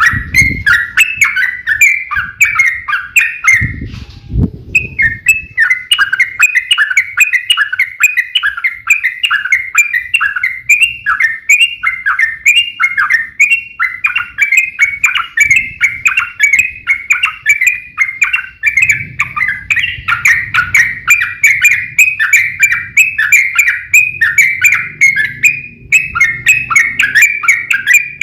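Yellow-vented bulbul (trucukan) song in a long, fast, nonstop run of repeated chattering notes, the rapid 'ropel' fighting song. There is a short break about four seconds in, with a couple of low thuds.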